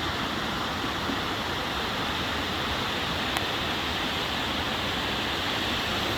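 River rapids rushing: a steady, even wash of moving water close to the microphone.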